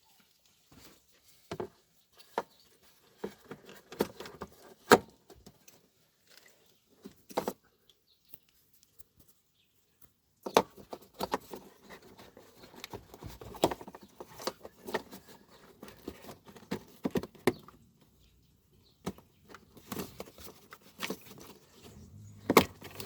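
Irregular clicks, taps and rustling of hard plastic parts being handled while the washer pump is worked into place. The sharpest clicks come about 5 s in, and there is a busier run of them through the middle.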